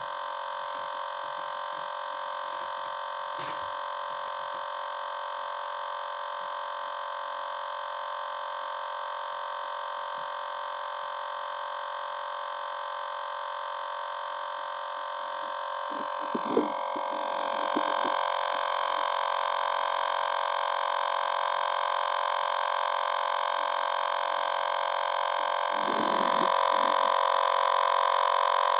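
Continuous electronic buzzing tone from a novelty toy's speaker that won't stop. It gets louder in two steps, about two-thirds of the way in and again near the end, with a few dull knocks around those moments.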